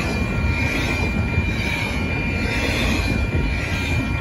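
Freight cars of a Canadian Pacific train rolling past at speed over a level crossing: a steady, loud rumble of wheels on rail, with a steady high tone riding over it.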